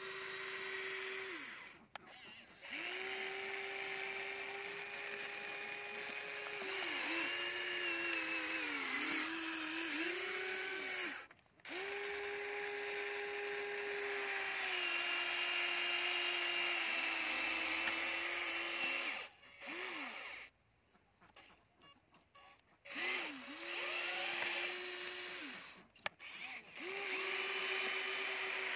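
Small electric motors of a toy remote-control excavator whining as the arm and bucket move, the pitch sagging and recovering under load. The whine runs for several seconds at a time, with short stops about two seconds in, around eleven seconds, a longer pause around twenty to twenty-three seconds, and another near twenty-six seconds.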